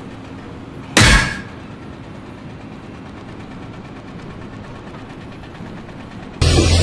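A single loud bang about a second in, fading within half a second, over steady background noise. Near the end a loud, steady low-pitched hum cuts in suddenly.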